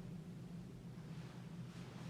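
Faint steady low hum from the elevator, with no distinct knocks or clicks.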